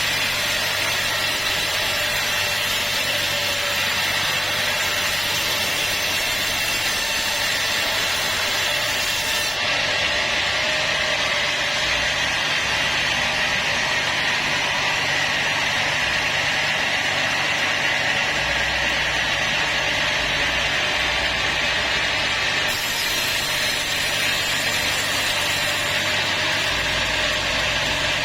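Sawmill saw running steadily through a teak log.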